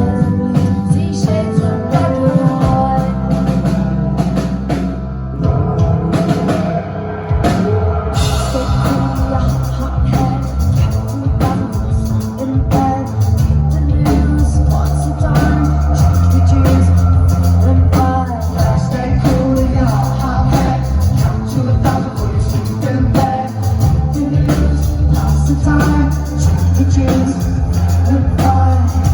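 Rock band playing live, a female lead voice singing over electric guitars, bass and drums.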